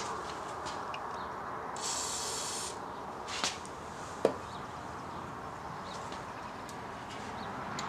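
A brief hiss from an aerosol can of penetrating oil being sprayed, about a second long and about two seconds in. It is followed by a click and one sharp metallic knock a second later, a tool against the brake bleeder fitting.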